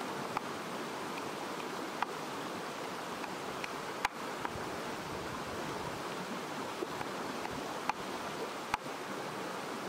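Stream running steadily over rocks, with a wooden pestle pounding spices in a clay mortar: about six sharp knocks, irregularly spaced one to three seconds apart.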